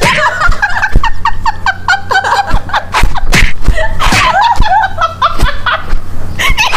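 Several women laughing hard together in quick, repeated high-pitched bursts of laughter.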